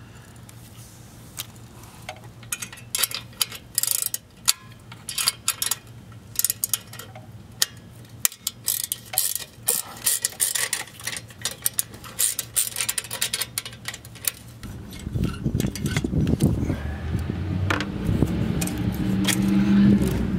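Irregular metallic clicks and clinks of a hand tool working the clamp on a turbo downpipe loose. About fifteen seconds in, a low vehicle engine sound comes in and grows louder.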